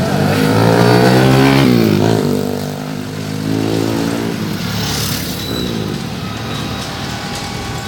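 Motorbike engines revving as they pass close by, several in turn. The loudest comes in the first two seconds and its pitch drops sharply as it goes past.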